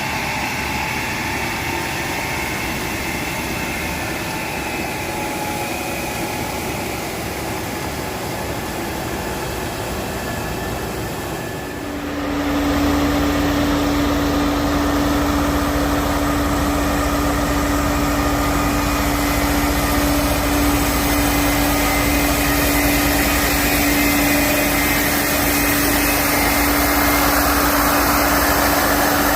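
Road construction machinery engines running steadily. About twelve seconds in the sound changes abruptly to a louder machine with a strong steady hum.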